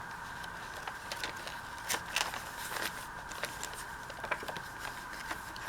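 Paper and card being handled and tucked into a journal: scattered light crackles and taps, the loudest about two seconds in, over a steady faint hum.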